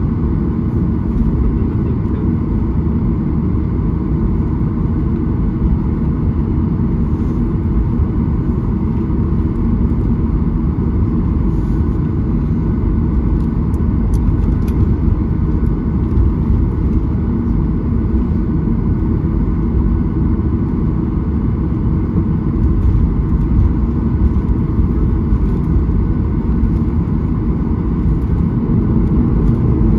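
Cabin noise of a Boeing 737-800 taxiing, heard from a window seat over the wing: a steady low rumble from its CFM56-7B engines at taxi power, with a steady midrange hum, growing slightly louder near the end.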